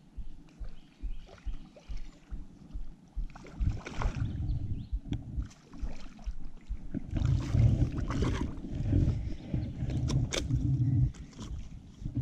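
Water splashing and sloshing around a paddleboard while a hooked bass is fought to the board on a fly rod, with knocks and rubbing from handling the rod and line. Louder from about seven seconds in.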